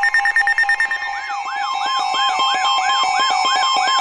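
Emergency alert tones sounding together: a steady two-tone attention signal with a steady higher tone and a rapid pulsing, joined about a second in by a repeating rising electronic sweep about two and a half times a second.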